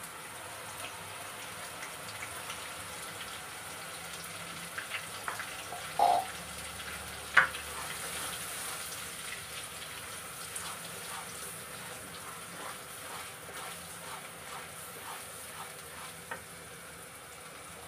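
Ground onion, tomato, ginger and garlic paste frying in hot oil in a nonstick wok, a steady sizzle, with a plastic spatula stirring and scraping the pan in small clicks. Two louder knocks of the spatula about six and seven seconds in.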